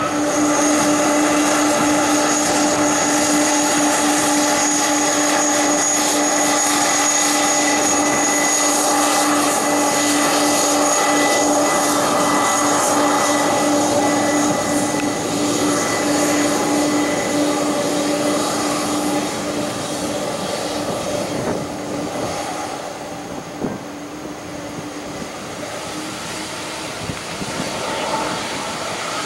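Jet engines of a three-engine McDonnell Douglas MD-11 freighter taxiing at steady power: a loud, steady whine over a broad rush that fades after about twenty seconds.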